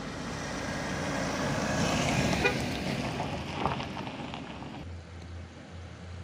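Toyota Innova MPV passing close by on a rough, gravelly road: engine and tyre noise swell to a peak about two seconds in, with a few sharp ticks, then fade. A steady low engine hum from another vehicle takes over near the end.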